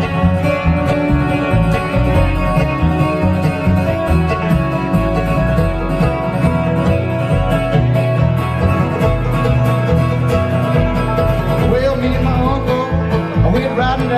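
Live bluegrass instrumental passage: a picked acoustic guitar over an upright bass, played loud through the stage PA.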